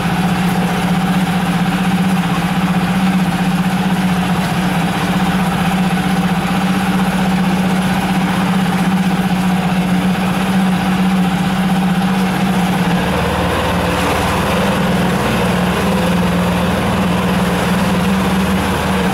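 Yamaha F5 5 hp single-cylinder four-stroke outboard idling steadily while it burns off the last fuel in its carburettor. The engine is new and not yet run in, so it is kept off high throttle. Its note shifts and deepens about two-thirds of the way through.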